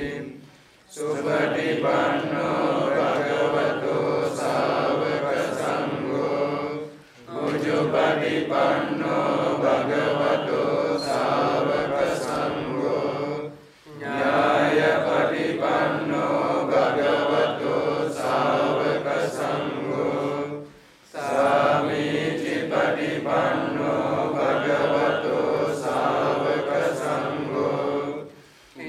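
A group of Theravada Buddhist monks and lay devotees chanting together in unison during a puja, in steady phrases of about seven seconds, each ending in a short pause.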